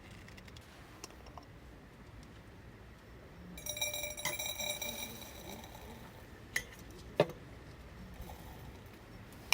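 Camp tableware clinking: a light ringing clink with a high shimmer that dies away over about a second and a half, then two short sharp knocks.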